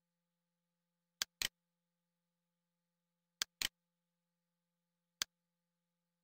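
Computer mouse clicks: a pair of quick clicks about a second in, another pair about two seconds later, and a single click near the end, over a very faint steady low hum.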